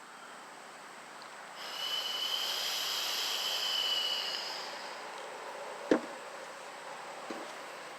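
Air hissing through a vacuum line with a thin whistle for about three seconds, as smoke is pushed in to find a leak at the front differential vacuum actuator. A single sharp knock follows about six seconds in.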